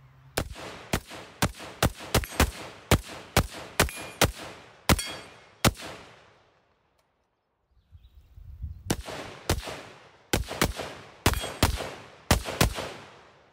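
AR-15 rifle in 5.56 firing rapid semi-automatic shots through an Armaspec Rifter linear muzzle brake with blast shield: a string of about thirteen shots at roughly two to three a second, a pause of about three seconds, then about nine more. The linear brake and shield send the blast forward, down range.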